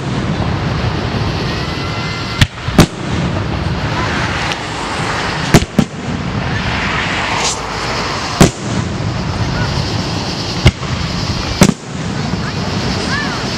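Aerial firework shells bursting overhead: about seven sharp bangs, unevenly spaced, two of them coming in quick pairs.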